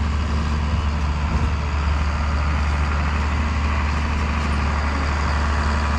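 Farm tractor's diesel engine running steadily with a deep, even drone.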